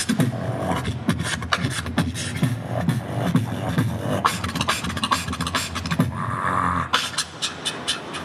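Live beatboxing into a microphone, amplified through a PA: a steady beat of deep bass kicks and sharp snare and hi-hat clicks. About seven seconds in the bass drops out, leaving a run of quick high clicks.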